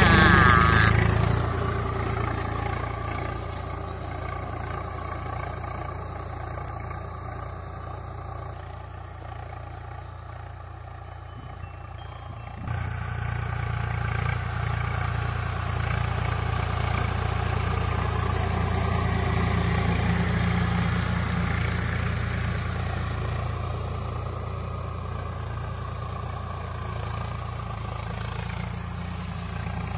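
Swaraj 744FE tractor's three-cylinder diesel engine running steadily under load while pulling a cultivator through the soil. It fades somewhat in the first few seconds, then comes back suddenly louder about halfway through.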